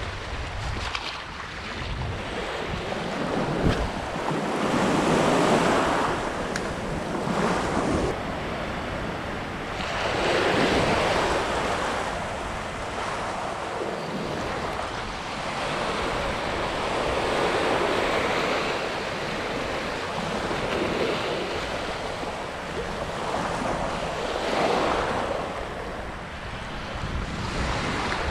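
Small surf breaking and washing up over sand and rocks, swelling louder about every six seconds, with wind buffeting the microphone.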